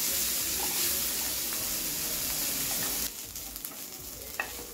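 Chopped onions sizzling in hot oil in a frying pan as they are stirred with a spatula and fried toward golden brown. The sizzle drops off suddenly about three seconds in and goes on much quieter, with a single light knock near the end.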